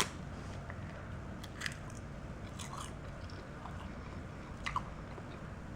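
A person biting and chewing a crisp roasted sesame seaweed snack sheet: a few faint, short crunches, the clearest about a second and a half in and again near three quarters through.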